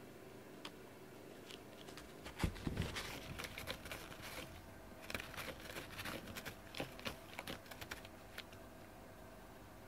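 Cat scratching a corrugated cardboard scratcher: rapid, dry clawing strokes in bursts for several seconds, beginning with a low thump about two and a half seconds in.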